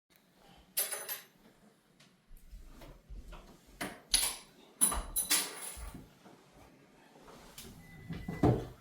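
Clatter of hard objects being handled and knocked together: a run of sharp clinks and knocks, some ringing like metal, about a second in and again around four to six seconds, then a heavier thump near the end.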